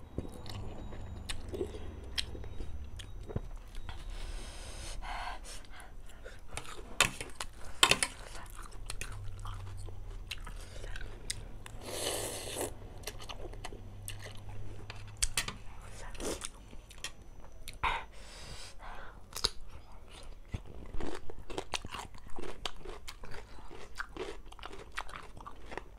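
Close-miked eating of instant noodles: slurping mouthfuls off a fork and chewing, with many short, sharp wet mouth clicks.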